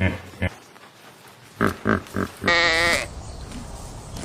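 An animal calling: a few short grunt-like calls, then one long, quavering bleat about two and a half seconds in.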